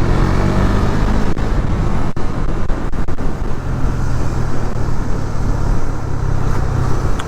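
Motorcycle engine running steadily while riding, with a dense rush of wind and road noise over a low, even hum.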